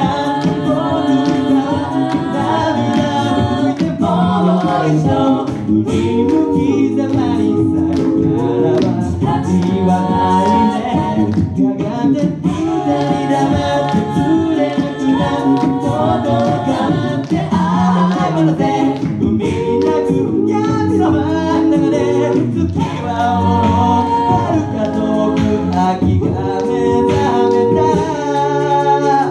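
Mixed group of male and female voices singing a pop song a cappella in harmony through microphones, with no instruments.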